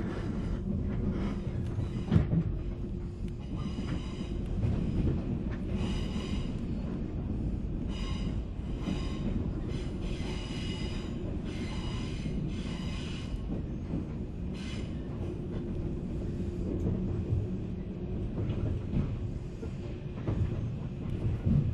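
Running sound inside a 485-series electric multiple unit motor car: a steady rumble of wheels and motors with a constant low hum. Through the middle stretch come regular knocks of the wheels over the track, about one a second.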